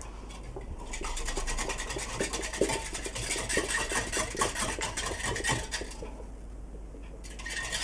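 Wire whisk beating eggs in a small bowl: a fast, continuous run of light scraping clicks against the bowl.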